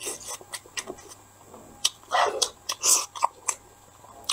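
Close-miked wet chewing and lip smacks of a person eating a sauce-soaked boiled egg, in irregular clicks and short smacking bursts.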